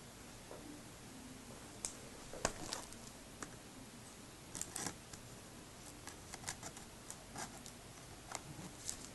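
Faint, irregular plastic clicks and taps of a shrink-wrapped CD jewel case being handled, in small clusters with pauses between.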